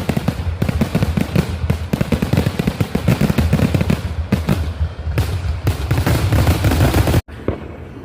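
Fireworks going off in a dense, rapid barrage of bangs and crackles, cutting off abruptly about seven seconds in, after which quieter pops continue.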